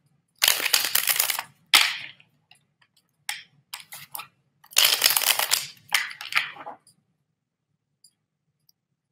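Tarot cards being shuffled in several short bursts of rapid flicking, stopping about seven seconds in.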